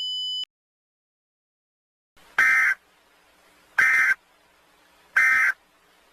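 A steady electronic tone cuts off about half a second in. Then come three short bursts of Emergency Alert System SAME digital data, about 1.4 seconds apart: the end-of-message (EOM) signal that closes an alert broadcast.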